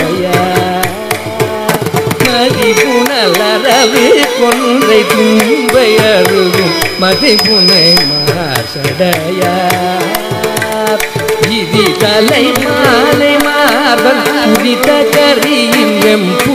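Carnatic classical concert music in raga Mohanam, Adi talam: a winding, gliding melodic line over steady drum strokes.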